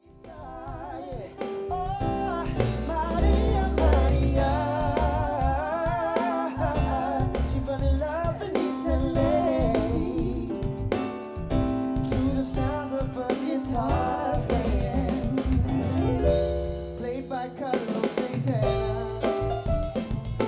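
Live band music: a man sings a slow melody with vibrato into a microphone over electric keyboard chords and drums, fading in at the start.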